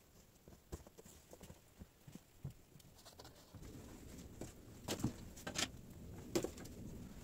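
Faint, uneven footsteps crunching in fresh snow. From about halfway a low rustle sets in, with several sharp cracks and knocks of dry firewood branches being carried and set down.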